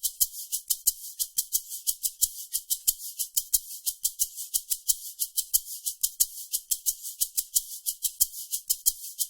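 Maracas shaken in a steady, quick, even rhythm: a looped dance percussion pattern of crisp, high, hissy shakes.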